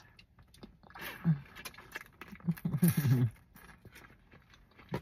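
Close-up eating sounds: crab meat being sucked and bitten from a boiled crab leg and chewed, with wet mouth clicks and lip smacks, and a couple of brief low hums, the longer one near three seconds in.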